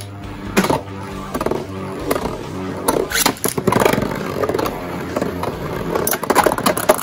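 Rock Leone and Lightning L-Drago metal Beyblades whirring and scraping as they spin across a plastic stadium floor. Their metal fusion wheels give several sharp clacks as they collide.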